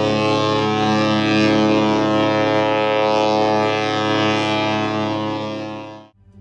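Cruise ship's horn holding one long, steady blast, which cuts off about six seconds in.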